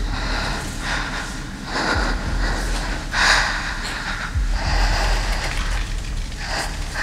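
A person's breathing heard close up: about five breaths, a second or more apart, the loudest a little past the middle, over a steady low rumble. It is the faint breathing of a hidden person being tracked by ear.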